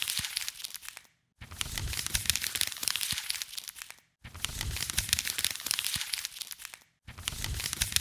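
Crinkling and crackling as hands work a Play-Doh surprise toy. The sound comes in three stretches split by sudden silent cuts about a second, four seconds and seven seconds in.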